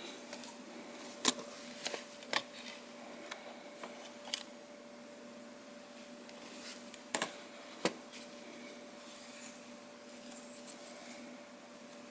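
Sharp clicks and light knocks of small laptop parts being handled, with soft rubbing between, as the Lenovo 11S motherboard is lifted out of its chassis. A faint steady hum runs underneath.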